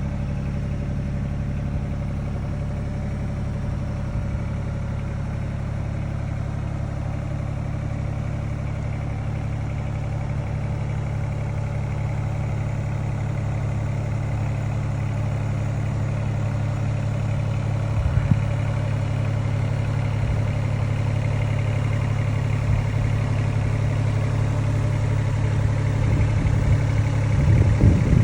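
John Deere 26G compact excavator's diesel engine running at a steady speed, with a brief louder sound about two-thirds through and some irregular noise near the end.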